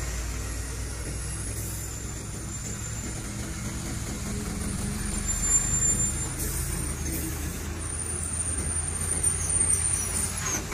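Diesel engines of heavy vehicles, a bus and then a tanker truck, running as they pass close by on an uphill road. The sound is a steady low drone that swells a little as each one goes by.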